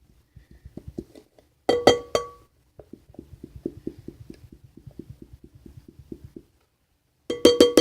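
Glitter glue bottle tapped against a mixing bowl to get the glue down: two clusters of sharp, ringing knocks, about two seconds in and near the end, with quick faint clicking between.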